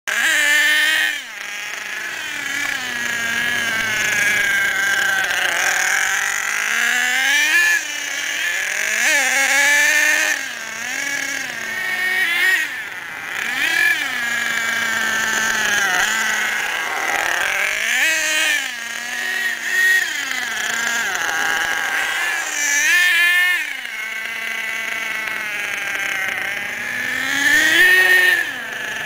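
HPI Savage X RC monster truck's 4.6 cc nitro engine (F4.6), new and being broken in, revving up and falling back over and over as the throttle is opened and released in short bursts. Its high, buzzing pitch climbs and drops every few seconds.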